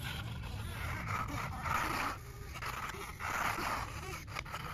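Radio-controlled wheel loader's electric drive motors and gearing whirring as it drives forward, rising and falling in several surges with the throttle, over a low rumble.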